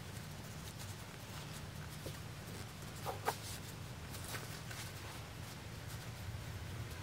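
Faint rustling of cotton fabric being handled as the sewn kit's corners are pushed out from inside, over a low steady hum, with two brief faint squeaks about three seconds in.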